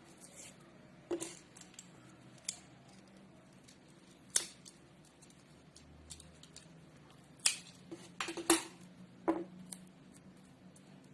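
Small hand tools snipping and clicking at a workbench: about eight sharp, separate snaps at irregular intervals, several bunched together a little past the middle.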